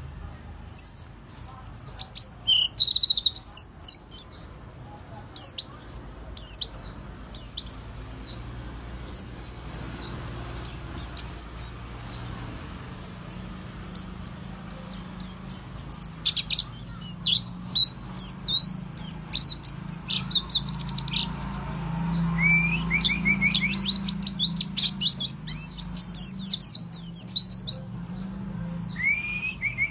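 Pleci (white-eye) singing a fast, high, chattering song of quick sweeping notes in dense bursts separated by short pauses, over a faint steady low hum. This is the lure song used to provoke a white-eye into singing.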